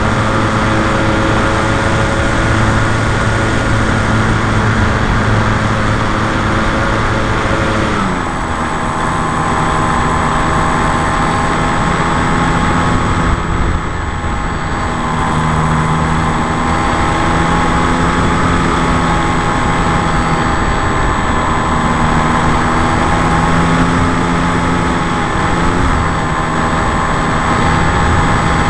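Brushless electric motor and propeller of a radio-controlled Piper J-3 Cub model running steadily in flight, heard from on board with airflow noise over it. About eight seconds in the motor's pitch drops as it is throttled back, then holds lower with a slight waver.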